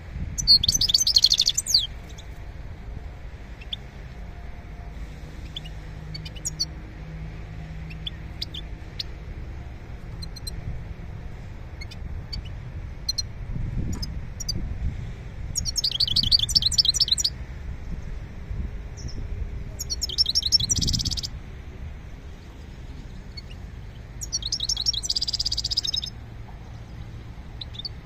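Caged songbird singing in four short bursts of rapid, high twittering, each about a second long, with scattered single chirps between them. A low rumble of background noise runs underneath.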